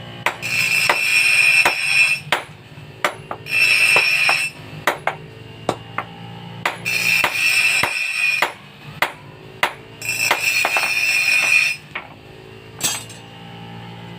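Hammer blows on metal at an anvil, struck irregularly, with four stretches of a harsher, steady hissing noise lasting a second or two each.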